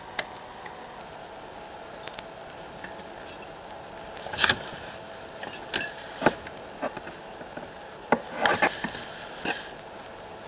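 Small steel tension wrenches from a lockpick set being set down and handled on a table: a scattering of light metallic clicks and taps, with small clusters about four and a half and eight and a half seconds in, over a steady hiss.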